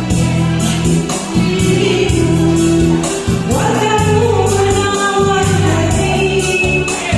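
A solo voice singing a slow Malay ballad over a backing track with a bass line and a steady beat; the sung line comes in about three and a half seconds in.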